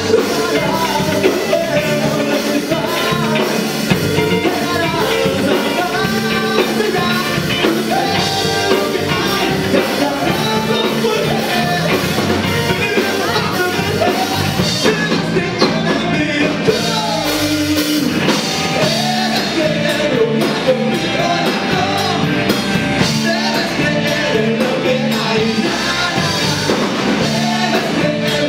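Live rock band playing: a vocalist singing over electric guitar and bass guitar, at a steady loud level.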